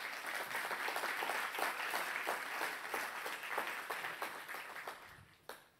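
Audience applauding: dense, steady clapping that thins out about five seconds in and ends with a few last separate claps.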